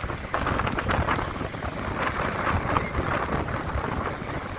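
Sea surf breaking and washing up a sandy beach: a continuous, surging rush of waves.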